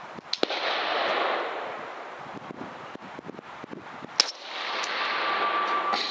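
Two rifle shots about four seconds apart, the second the louder, each a sharp crack trailed by a second or so of fading hiss.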